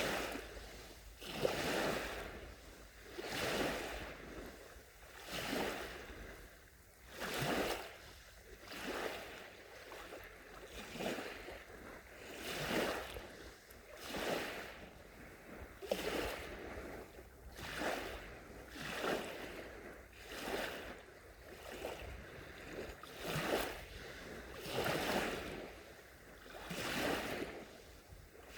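Small waves lapping onto a beach, each one a soft rush of surf that swells and fades, coming in a steady rhythm of roughly one every second and a half to two seconds.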